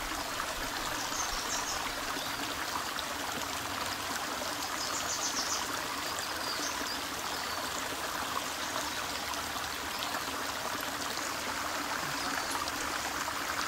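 Shallow stream running over flat rock: a steady, even sound of flowing water.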